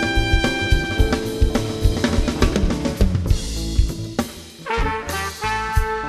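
Live jazz band playing. A held trumpet note ends about a second in, the drum kit carries the music with snare and bass drum strokes, and after a short dip trumpet comes back in with sustained notes near the end.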